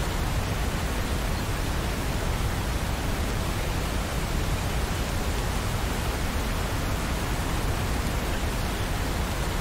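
Steady rain, an even hiss with no separate drops standing out.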